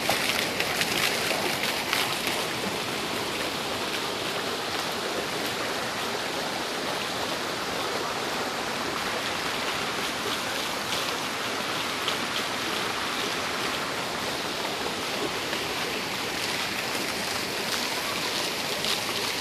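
Garden fountains: water jets shooting up and splashing down into a pool, with water pouring from spouts down a stepped fountain wall, making a steady rushing hiss of falling water. The splashing is a little louder and more spattery in the first couple of seconds.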